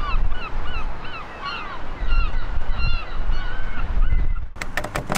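A flock of birds flying overhead, calling with many short notes that each rise and fall in pitch, over a low rumble. Near the end the calls stop and a few sharp clicks and jingles of a bunch of keys come in.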